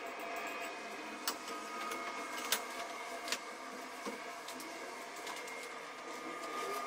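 A few sharp clicks and knocks of metal parts of an assembled shooting rest being handled and set down on a table, the loudest about two and a half seconds in, over a steady background hum.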